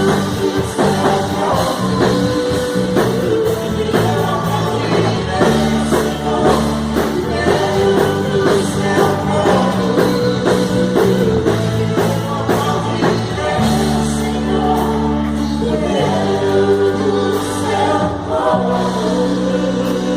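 Live Christian worship music: a drum kit and band play under a group of singers, with frequent drum and cymbal hits over held chords.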